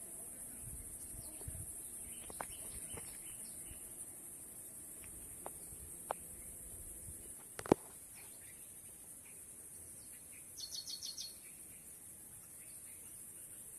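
Outdoor nature ambience: a steady high-pitched insect drone, a few sharp clicks with the loudest about two-thirds through, and a quick run of about five bird chirps near the end.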